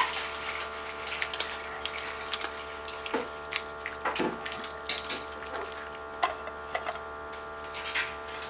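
Scattered light clicks and knocks of kitchen handling over a steady hum.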